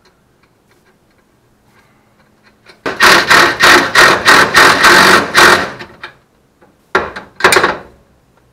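Power ratchet running nuts down onto the ball-joint bolts of a control arm. It gives a loud, rapidly pulsing run of about three seconds, then two short bursts near the end as the nut snugs up.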